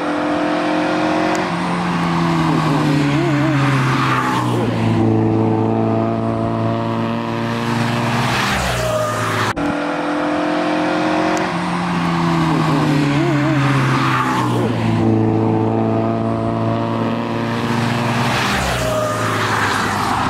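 Street-racing cars driven hard on a mountain road, engine notes falling in pitch as they pass close, with a brief wavering tire squeal and a rush of passing noise. The same ten-second passage plays twice.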